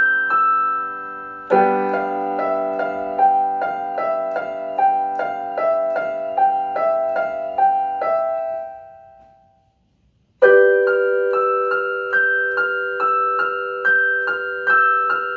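Piano improvisation: a chord struck about a second and a half in, with a run of evenly repeated higher notes over it, dying away to silence near the middle. A new chord comes in about ten seconds in, and the repeated notes start again.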